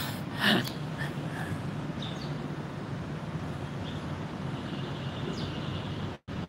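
Steady outdoor background hum with a few faint high chirps and one short, louder sound about half a second in; near the end the audio cuts out in rapid dropouts.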